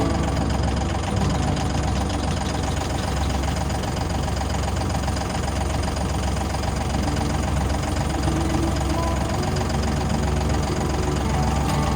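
An engine running steadily, with a constant low hum and no change in speed.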